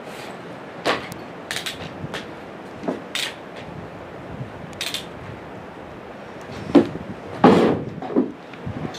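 Hailstones striking close to the microphone in irregular, sharp knocks, a few a second at most, with the heaviest hit about seven and a half seconds in, over a steady rush of wind.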